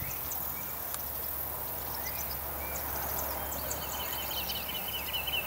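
Insects chirping faintly over a low steady hum, joined about two-thirds of the way in by a high, rapidly pulsing buzzing trill that keeps going.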